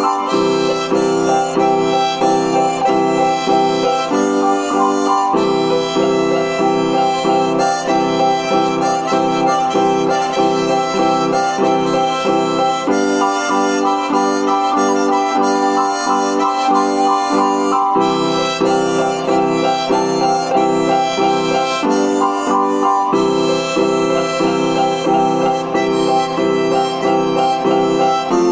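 Harmonica playing a melody over electronic keyboard chords struck in a steady rhythm.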